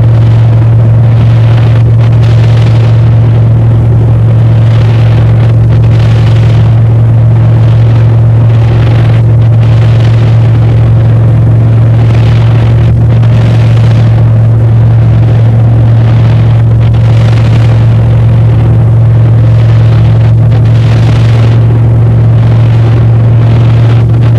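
Airplane engine drone heard inside the cabin in flight: a loud, steady low hum with a rushing hiss over it that swells and fades every second or two.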